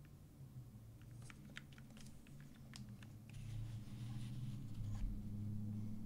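A mechanical keyboard being handled: a scatter of light clicks and taps as it is turned over, then a brief brushing sound and a soft thump as it is set down on a felt desk mat. A low steady hum runs underneath.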